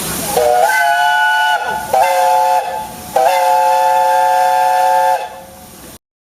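Steam locomotive whistle sounding a three-note chord in three blasts, a medium one, a short one, then a long one of about two seconds, over a steady hiss of steam that fades away near the end.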